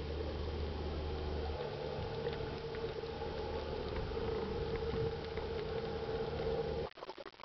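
Water rushing past an underwater camera as a diver is towed on a hydroplane, a steady wash with a low, even hum under it. The sound drops away abruptly near the end.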